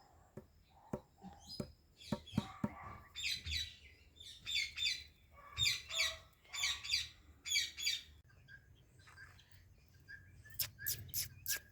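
Pet Indian ringneck parakeet calling: a run of about seven short chirping calls in quick succession, with a few sharp clicks before them and a quick series of four sharp clicks near the end.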